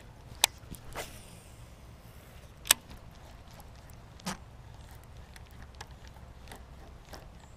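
Sharp clicks and knocks from handling a baitcasting reel and rod during a cast, with a brief faint whirr about a second in as line pays off the spool. The loudest click comes near the middle, with scattered lighter ticks later. A steady low rumble lies underneath.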